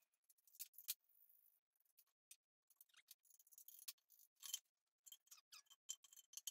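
Faint, irregular small clicks and ticks of hands handling engine parts while the fuel tank is taken off a small pressure-washer engine.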